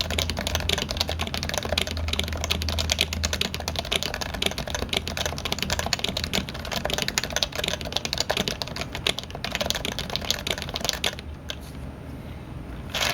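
Fast, continuous typing on a Topre keyboard, its electro-capacitive rubber-dome keys clicking densely, stopping about eleven seconds in. A single sharp click comes near the end.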